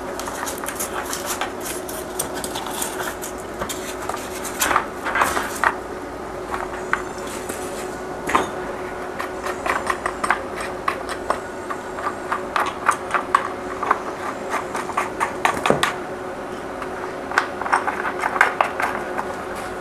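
Small plastic clicks and taps, in irregular runs of quick ticks, as water-level indicators are pressed and twisted into the cell openings of a tubular lead-acid battery, over a faint steady hum.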